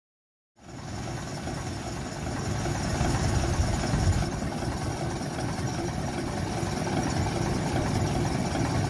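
Diesel locomotive engine idling steadily in its open engine room, cutting in about half a second in.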